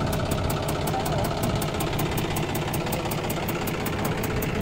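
John Deere 5310 tractor's three-cylinder diesel engine idling steadily, with a regular ticking clatter.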